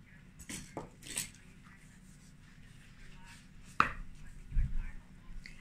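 Scattered taps and knocks of kitchen utensils against a mixing bowl and tabletop: a few light clicks, a sharp click a little under four seconds in, then a few dull thumps.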